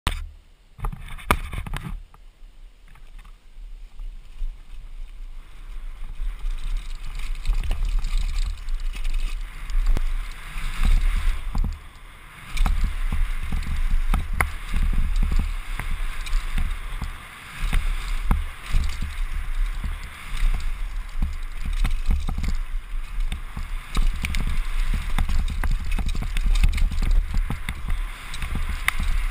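Wind buffeting the microphone of a helmet-mounted camera on a fast downhill mountain-bike run, with rattles and knocks from the bike as it hits bumps on the dirt trail. Quieter for the first several seconds, then louder as the speed builds.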